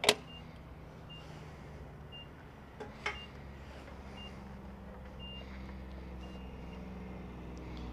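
Fuel pump dispenser giving short, high electronic beeps at uneven intervals, with a sharp clack just at the start and another about three seconds in, over a steady low engine hum.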